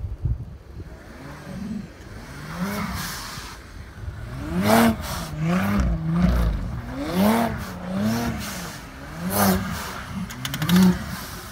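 An Audi's engine revving up and down in repeated surges, about once a second, as its wheels spin on snow during donuts. The revving is lighter in the first few seconds and stronger after that, with a few short sharp noises in between.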